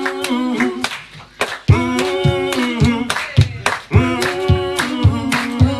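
Several voices singing held notes in harmony over sharp hand claps about twice a second, with little or no instrument playing; the singing breaks off briefly about a second in.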